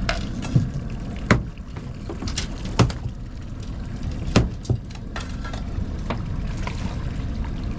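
Steady low rumble of wind and water around a small fishing boat, broken by about half a dozen sharp knocks and clicks.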